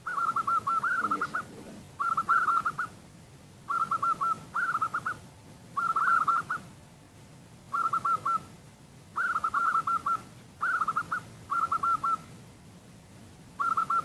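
Zebra dove (perkutut) cooing: about ten short phrases of rapid, stuttering coo notes, each under a second long, repeated every one to two seconds.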